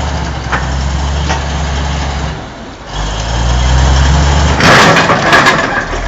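Heavy diesel engine of a crawler machine running under load. It drops away briefly about two and a half seconds in and comes back. Near the end a loud, rough burst of noise takes over from the engine.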